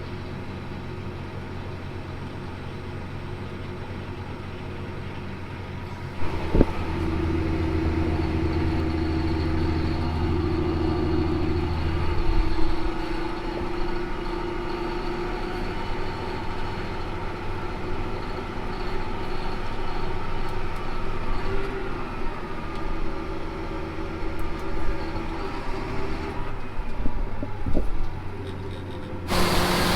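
Large diesel farm machinery engine running steadily under load, a deep droning hum. It gets louder and changes tone about six seconds in and again near the end, with a single sharp knock shortly after the first change.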